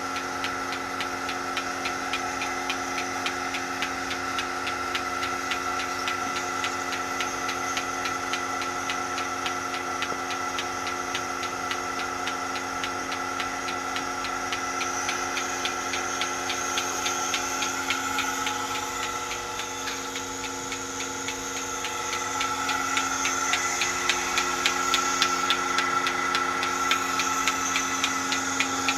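Milking machine running: the vacuum pump motor hums steadily while the pulsator clicks in a fast, even rhythm, a little louder in the last few seconds.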